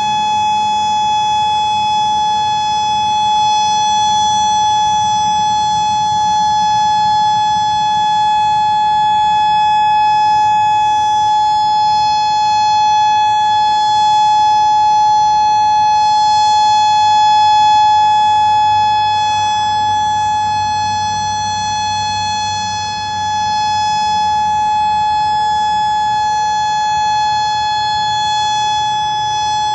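Outdoor civil defense warning siren sounding a steady, unwavering tone for a tornado drill, the alert used to warn of a tornado.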